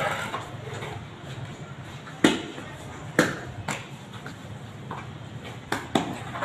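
A handful of sharp knocks at uneven intervals, the loudest a little over two seconds in, over a low steady background hum.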